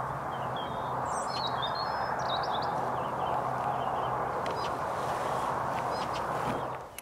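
Small birds chirping and whistling over a steady hiss with a low hum, the birds mostly in the first half; the sound cuts off abruptly near the end.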